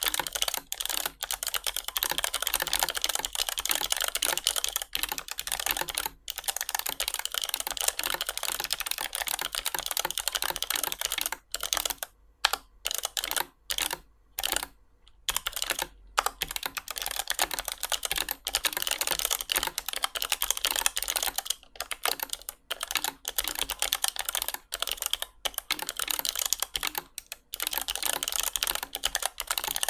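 Fast typing on a low-profile mechanical keyboard with Outemu Snap Spring Blue clicky switches, where a snap spring makes the click and tactile bump. A dense run of clicky keystrokes, broken by a few short pauses about halfway through.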